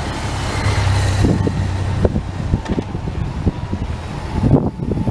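Race convoy vehicles, a support truck and motorcycles, passing on the road. A steady engine hum runs for the first couple of seconds and then gives way to irregular low rumbling.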